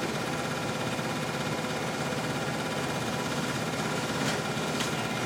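A vehicle engine idling steadily, with two faint knocks near the end.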